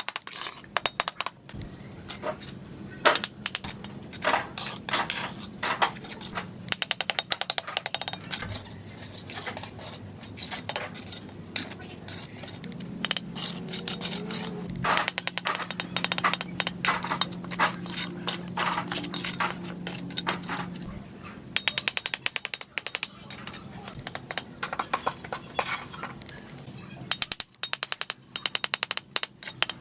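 Steel brick trowel clinking and scraping on bricks and wet cement mortar: many quick taps and scrapes as bricks are set and the mortar is spread and trimmed.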